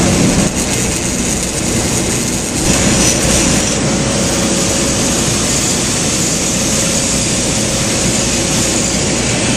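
Steady noise of a bank of rooftop dry cooler fans running, with a faint steady hum; the noise shifts slightly about three seconds in.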